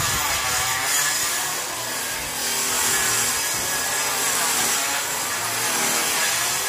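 Power tool working timber: a steady, continuous machine noise whose pitch dips and rises gently as it bites into the wood.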